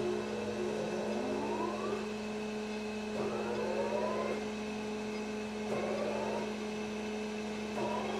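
Crankshaft grinder running with a steady hum, while one of its drive motors spins up in short rising whines about four times as the machine is jogged.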